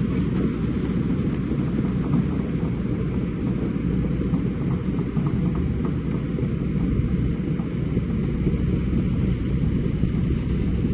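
Kobelco hydraulic excavator's diesel engine running steadily, a deep, even engine sound with no sharp knocks.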